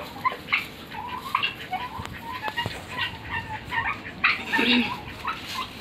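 Helmeted guineafowl and chickens calling: a flock's short calls repeating one after another, a louder one a little past four seconds.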